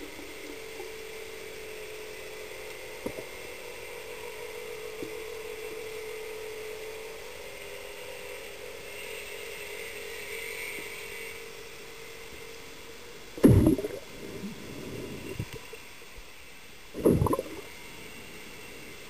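Underwater recording of a radio-controlled model submarine: its electric motor and propeller give a steady hum that fades over the first half. Later come two loud short bursts of bubbling water, a few seconds apart.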